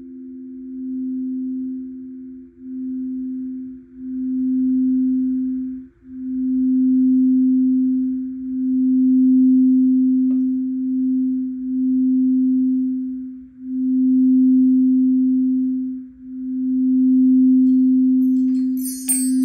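Singing bowl sounding a single steady low tone that swells and fades every two to three seconds. A faint click comes about ten seconds in, and a shimmer of chimes enters just before the end.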